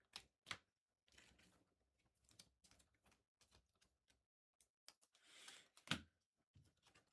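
Faint clicks and taps of trading cards being handled on a table, with a short rustle a little after five seconds in and a sharper tap just before six seconds.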